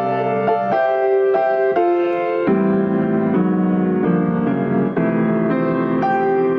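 Piano playing a slow piece, chords and melody notes struck one after another and left to ring.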